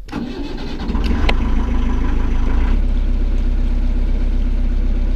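Narrowboat engine starting: it catches with a sudden jump in level, runs up over about a second with a couple of sharp clicks, then settles into a steady idle.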